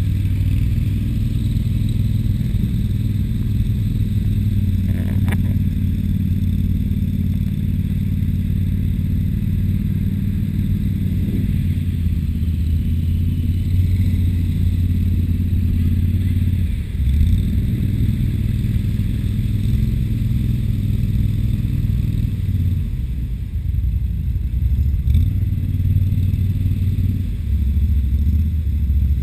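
Argo amphibious ATV on Adair tracks driving through mud, its engine running with a steady low drone. The engine note shifts about two-thirds of the way in and again near the end.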